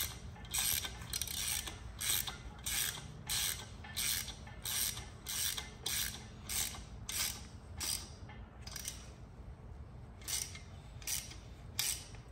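Hand ratchet wrench clicking in repeated back-strokes, about one and a half a second, as the clutch pressure plate bolts are tightened onto the flywheel. The strokes pause briefly about nine seconds in, then resume.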